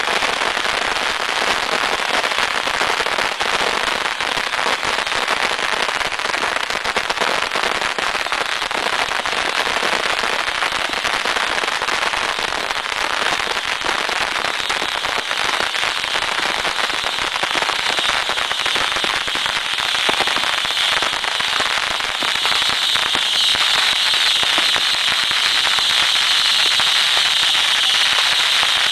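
Beehive fireworks: a rack of thousands of bottle rockets going off all at once, in a dense, unbroken crackle of launches and bangs. From about halfway through, a high hiss grows louder over the crackle.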